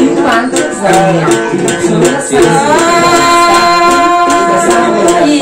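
A woman singing a Thai folk song in a high voice, accompanied by a long-necked gourd lute (đàn tính) plucked in a steady rhythm. She holds one long note through the second half.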